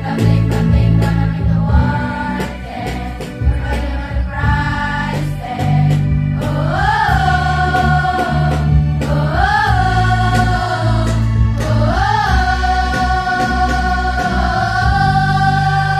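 Girls' choir singing in unison with a live band of drum kit and keyboard. In the second half the voices rise into long held notes three times, the last held for about four seconds.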